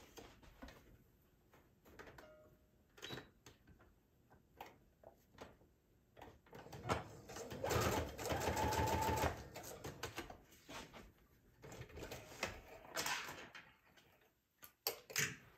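Sewing machine stitching a fabric strip onto a paper journal card: one fast, even run of stitches about seven seconds in, lasting about two and a half seconds. Scattered clicks and knocks come before and after it.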